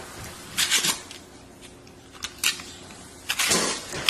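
Crinkly candy-toy packaging being rustled and pulled apart by a capuchin monkey, in several short bursts, the longest about three and a half seconds in.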